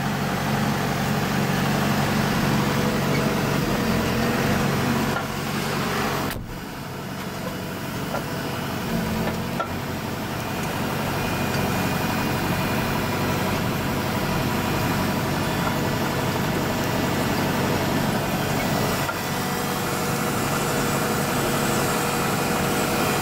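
John Deere tractor engine running steadily, heard from inside the cab. The hum dips briefly about six seconds in.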